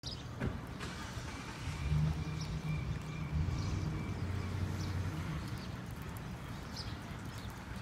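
Outdoor street ambience: a low rumble, like passing traffic, swelling through the middle, with scattered light taps.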